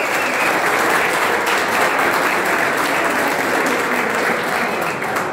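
Audience in a hall applauding with steady clapping that dies away near the end.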